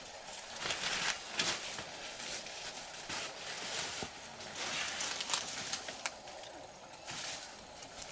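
Rustling of dry banana leaves and undergrowth as a person pushes through and works among the plants, coming in irregular bursts, with a couple of sharp snaps about four and six seconds in.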